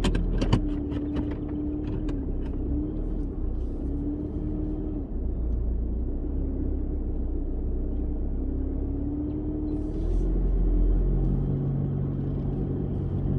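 4x4 vehicle driving, its engine running with a note that wavers up and down over a steady low rumble. A few sharp knocks come in the first second or so, and the rumble grows louder with a deeper steady note near the end.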